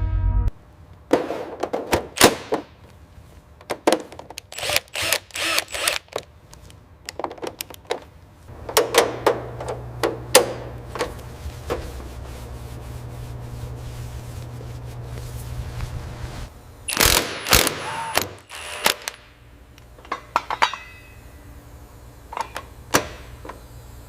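Workshop tool sounds: an irregular run of knocks and clanks, with a low steady machine hum through the middle stretch.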